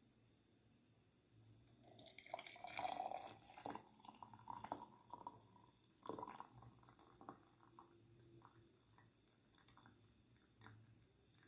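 Liquid being strained into a glass, faint: a short trickle with drips about two seconds in, then a few light clinks and taps.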